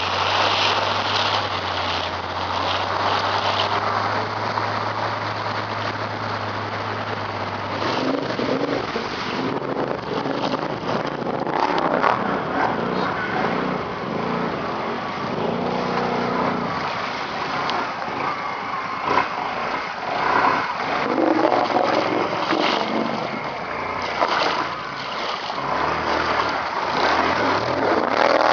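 ATV engine running on a trail ride, steady in pitch for the first several seconds, then rising and falling with the throttle.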